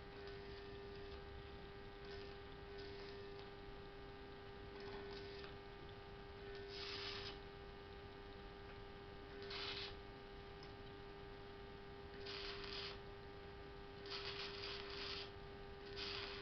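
Homemade choke-ballasted welding transformer humming steadily, broken by about five short hissing bursts of a second or less, spread through the second half.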